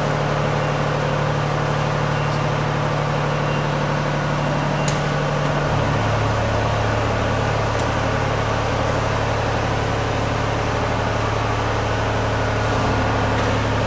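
Steady low mechanical hum of machinery running, its pitch stepping down about six seconds in.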